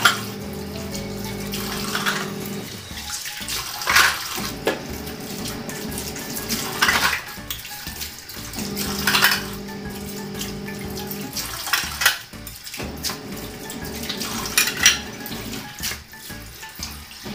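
Kitchen tap running into a stainless steel sink while dishes are washed and rinsed under the stream, water splashing off the plates. A few brief louder clatters of dishes come at intervals of a few seconds.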